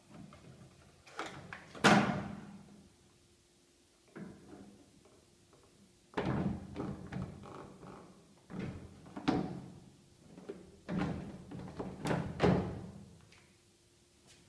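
Plastic control panel and top cover of a Sanyo top-loading washing machine being fitted and pressed into place: a run of plastic knocks, clunks and rattles, the sharpest about two seconds in, then several clusters of knocking through the rest.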